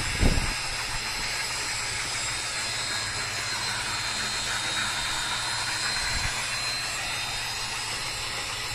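Steady hissing rush of a blower-type machine with a faint high whine and a low hum, broken by a dull thump just after the start and another about six seconds in.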